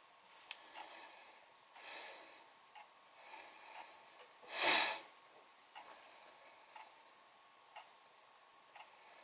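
Faint, sparse ticks of fine metal tweezers gripping and plucking beard hairs and setting them on tape, about one a second, with soft rustling. About halfway through, a short, loud, breathy whoosh.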